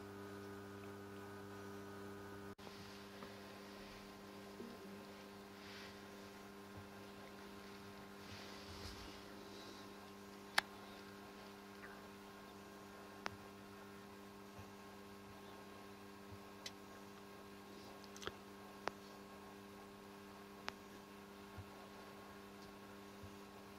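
Faint steady hum made of several low tones, with about a dozen sharp clicks at irregular intervals; the loudest click comes about ten seconds in.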